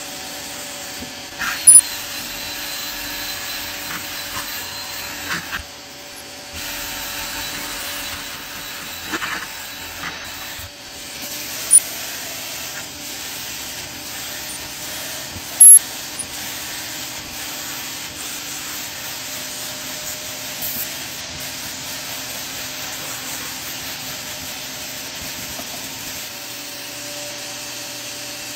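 Upholstery extractor running steadily while its vacuum wand is drawn across a cloth car seat, sucking dirty water out of the fabric. Three brief, sharp, loud clicks stand out about 2, 12 and 16 seconds in.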